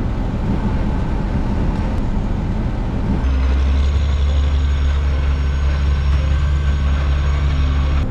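Heavy armoured vehicle's engine running. About three seconds in the sound shifts abruptly to a deeper, steady, louder drone.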